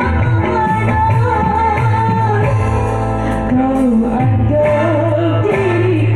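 A woman singing along with backing music that has a steady bass line, her voice hoarse from a cough.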